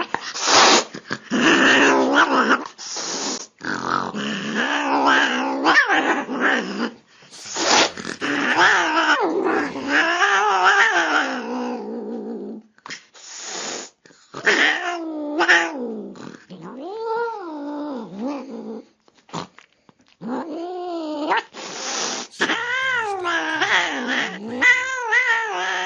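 Angry domestic cat growling and yowling in long, wavering calls that rise and fall in pitch, broken every few seconds by sharp hisses.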